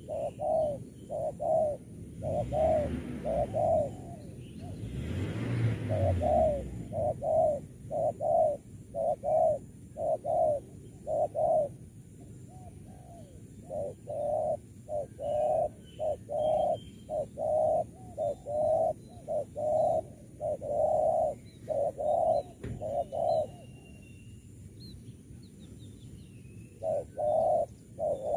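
Spotted doves cooing: a long run of short, low notes in quick pairs and threes, with a short pause about twelve seconds in and a longer one near the end. A rush of noise swells a couple of seconds in and dies away by about seven seconds, and faint high chirps of small birds come in the second half.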